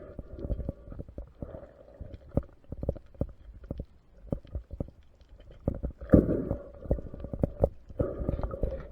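Muffled underwater sound from a spearfishing dive: scattered crackling clicks throughout, with a low droning hum that swells about six seconds in and again near the end.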